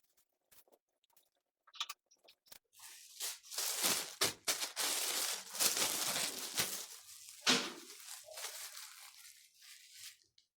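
Crinkling and rustling of handled material, such as a plastic or paper wrapper, in uneven surges for several seconds, with a sharper crackle near the middle, then fading.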